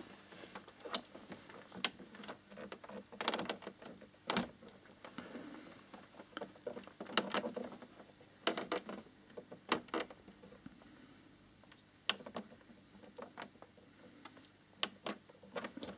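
Plastic control-panel buttons on an HP Photosmart C4480 inkjet printer clicking under a fingertip, pressed in an irregular series of single presses to key in the hidden special key combination that opens the support menu.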